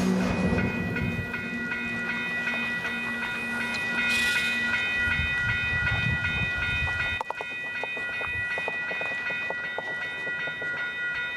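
Freight train rumbling at a railroad crossing, with a steady high ringing of several tones over it. The rumble drops away abruptly about seven seconds in, while the ringing carries on.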